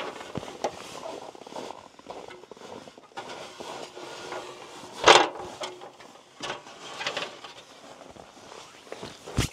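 Aluminium stepladder being carried and stood up in packed snow, with footsteps and scattered scrapes and knocks. One loud clank about five seconds in and another near the end.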